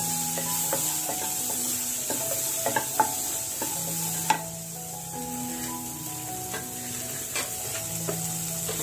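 Chickpeas (sundal) being stirred with a spoon in a hot tempering pan: steady sizzling with a few sharp clinks of the spoon against the pan, over soft background music.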